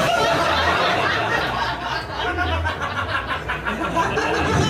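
A comedy club audience laughing at a punchline. The laughter is loudest at the start and eases off over a couple of seconds.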